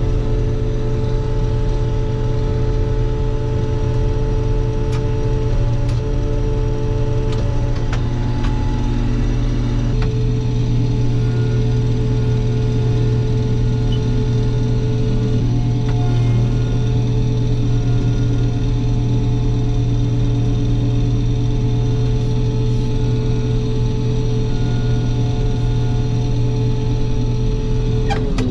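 Combine harvester running while shelling corn: a steady, loud drone of the engine and threshing machinery, with a slight shift in its note several seconds in.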